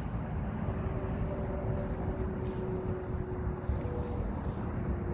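Steady low rumble of distant motor traffic with a faint engine drone that drifts slightly in pitch, and wind buffeting the microphone.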